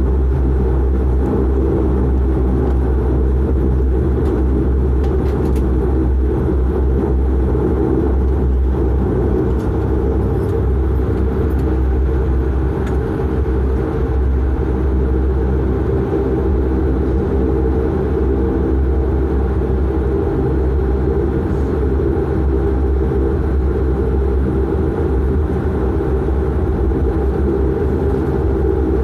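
A De Havilland Canada Dash 8-400's Pratt & Whitney PW150A turboprop engine and six-bladed propeller, heard from inside the cabin while taxiing. The drone is steady and unchanging, with a deep hum and a stack of steady propeller tones.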